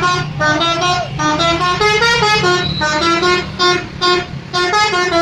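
Bus 'telolet' musical horn playing a quick tune of short notes that step up and down in pitch, about two or three a second, with the bus's engine rumbling underneath.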